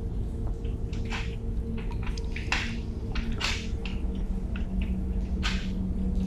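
Several short handling noises, a fraction of a second each, over a steady low hum; a faint low steady tone comes in near the end.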